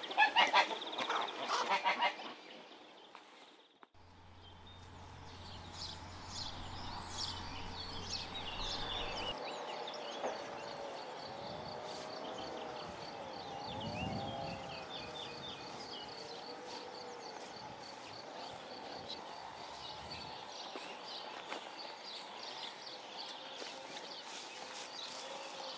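A man laughs briefly at the start, then countryside ambience: scattered birdsong over a steady, regular insect chirring. From about ten to seventeen seconds in come several drawn-out animal calls that rise and fall.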